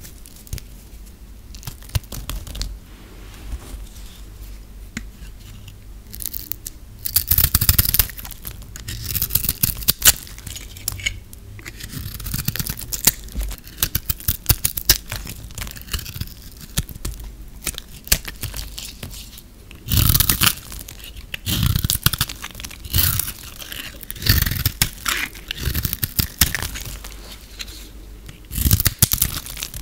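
Knife blade cutting into dry, brittle recycled soap, the bars crackling and crunching as they split and flake. The first few seconds are quieter scraping; after that come several loud spells of dense crackling.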